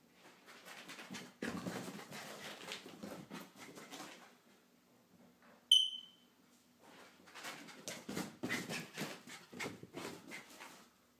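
Two stretches of scuffling and rustling close to the microphone, from movement around the phone, with one short, loud, high-pitched squeak about halfway through.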